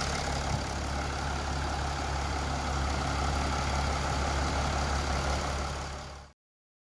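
Mercedes-Benz ML 350 engine idling steadily with its newly fitted AC compressor running. The sound fades and cuts off abruptly about six seconds in.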